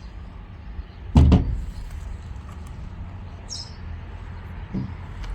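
A single loud knock about a second in, over a low steady rumble, followed by a short high squeak and a fainter knock near the end.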